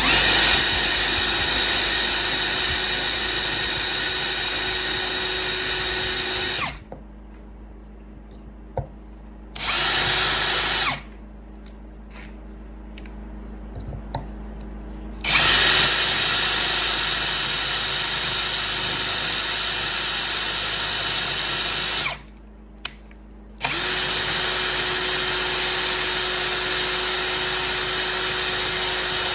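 Electric drill running steadily in four bursts with short pauses between, one of them brief, used to remove a seized aluminium sex bolt from an axe handle.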